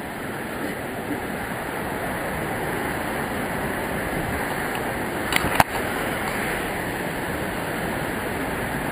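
Steady rushing noise of the Savica waterfall's falling water, with one short sharp knock a little past halfway through.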